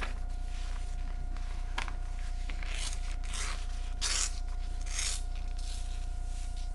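A sheet of A4 paper being folded and creased by hand: a string of short papery swishes and scrapes as the fingers slide along the folds. A steady low electrical hum runs underneath.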